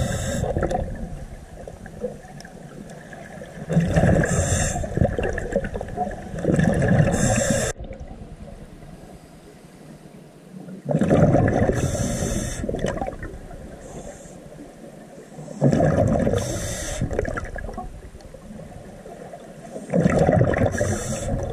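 Scuba diver breathing through a regulator underwater: exhaled bubbles gurgle out in bursts about every four to five seconds, with quieter breathing hiss between them.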